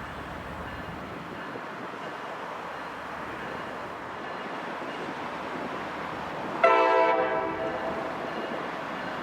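A diesel locomotive's air horn sounds one short blast about two-thirds of the way in, a chord that rings out briefly as it dies away, over steady background noise.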